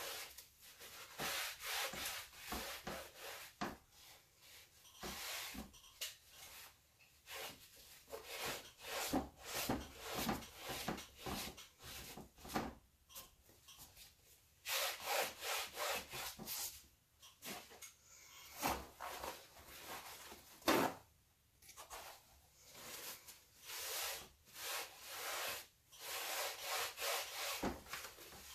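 A paper towel rubbing along the edges of a stretched canvas, wiping off excess paint in many uneven strokes.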